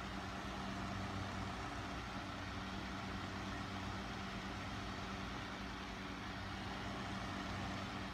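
Electric fan running steadily, a low even hum with a faint rush of air, blowing across a tank of water to drive a surface current.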